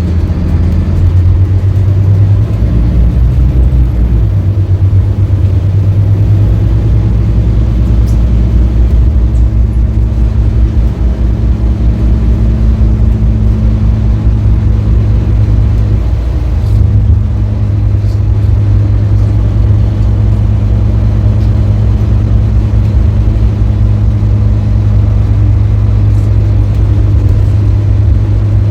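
Diesel engine of a 2018 Scania K310UB bus running, a steady low drone with road noise, its note shifting about four seconds in and again around sixteen seconds.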